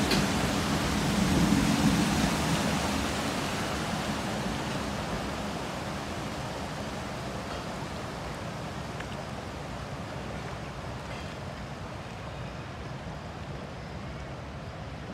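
Passenger train coaches rolling through floodwater over the tracks, the wheels churning up water in a steady rushing splash with a low rumble. The sound fades steadily as the last coach passes and the train draws away.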